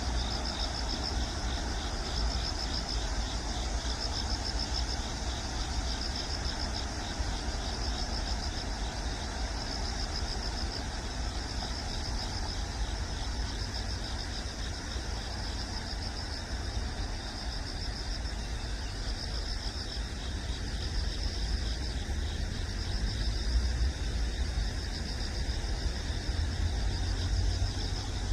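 Outdoor background ambience: a steady low rumble of distant road traffic under a continuous, rapidly pulsing high-pitched insect trill.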